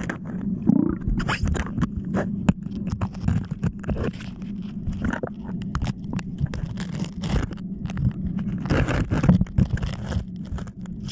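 Underwater sound picked up by a submerged camera: a steady low hum with many irregular clicks and short scrapes over it.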